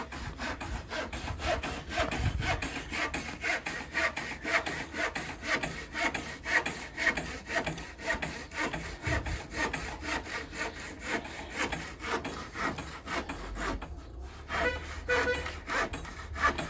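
Hand saw cutting through wooden fence timber in steady back-and-forth strokes, about three a second, stopping about fourteen seconds in.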